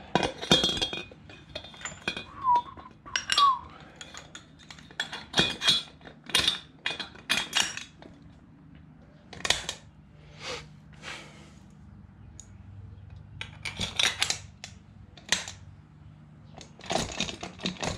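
Stainless steel transom launch wheel leg and bracket being handled and its wire lock pin worked by hand: irregular metal clinks, clicks and knocks in clusters, with a couple of short squeaks about three seconds in.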